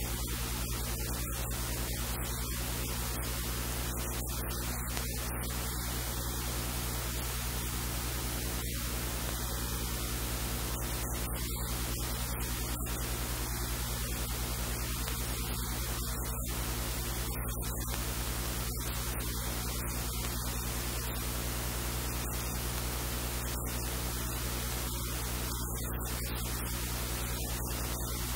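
Steady electrical hiss with a low mains hum: the recording's noise floor, with no other sound standing out.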